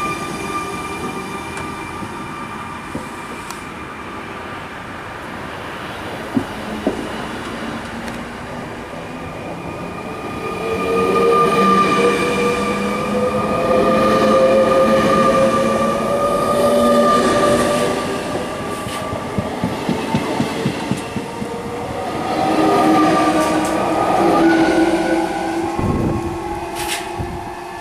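Z2N double-deck electric commuter trains running through a station: the traction motors whine in steady and slowly gliding tones over the rumble of wheels on rail. The sound grows louder from about ten seconds in as a second train approaches.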